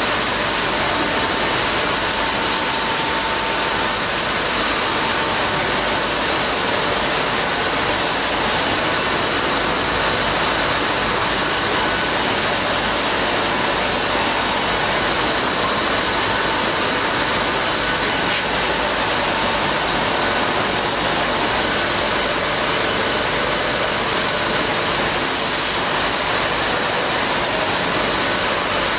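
Steady rushing air noise of a CNC through-feed drilling machine and its dust extraction running, with faint short whines that come and go.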